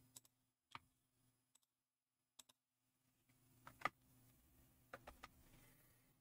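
Near silence: room tone with a faint low hum and a few faint, scattered clicks, the loudest nearly four seconds in.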